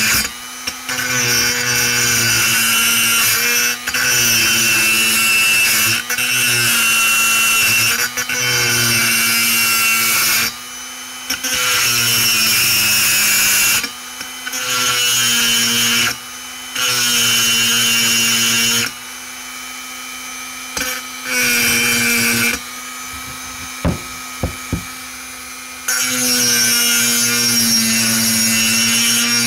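Pencil grinder with a burr cutting inside the port of a two-stroke chainsaw cylinder during porting: a grinding rasp in short cuts of a second or two, repeated over and over, with the grinder's steady whine running on between cuts.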